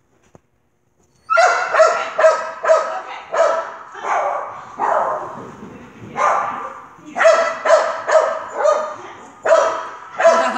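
A curly-coated poodle-type dog barking repeatedly: about a dozen short, sharp barks in quick succession, roughly one to two a second, starting about a second in.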